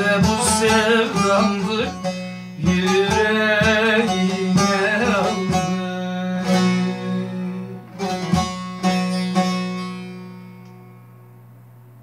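Bağlama (long-necked Turkish saz) played with a plectrum under a man's voice singing long wavering notes. After about six seconds the voice stops and a few closing strums ring out, the last fading away about ten to eleven seconds in.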